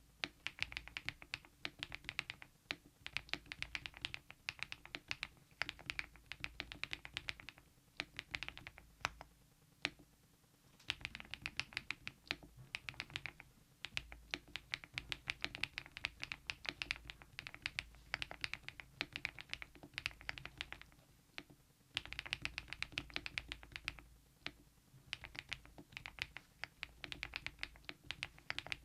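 Typing on a mechanical keyboard fitted with KeyTok Godzilla dye-sublimation keycaps: fast, continuous keystrokes in runs, with brief pauses about ten seconds in and again a little past twenty seconds.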